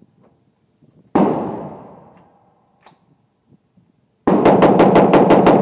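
National Armory BEAR AR-15 rifle firing: one shot about a second in with a long echoing tail, then from about four seconds in a rapid, even string of shots, six or seven a second.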